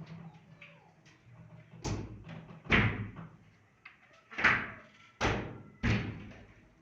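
About five loud, sharp bangs, like wood being struck or slammed, at irregular intervals from about two seconds in.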